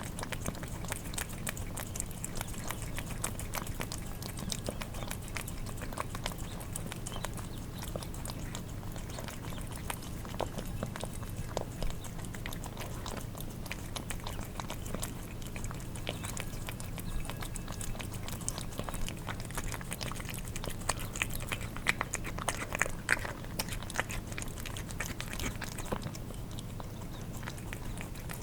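Cats eating wet cat food: a steady stream of wet licking, smacking and chewing clicks, busier and louder about three-quarters of the way through, over a steady low hum.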